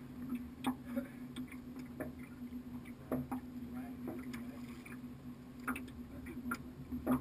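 Small aluminium fishing boat sitting on the water: about a dozen irregular light knocks and taps against the hull over a steady low hum.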